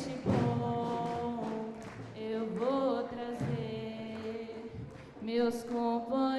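A group of young singers singing together in unison, holding long notes.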